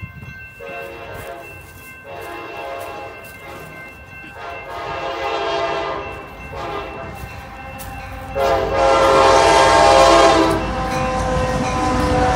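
Amtrak EMD F59PHI locomotive sounding its air horn in a series of chords for the grade crossing: several long blasts, one short, then a final long blast, the loudest, as it arrives. In the last seconds the locomotive and its cars rumble past.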